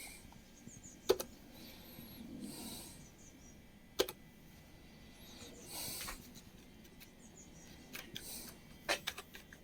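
A few sharp computer keyboard key presses: single clicks about a second in and at four seconds, then a quick cluster of presses near the end.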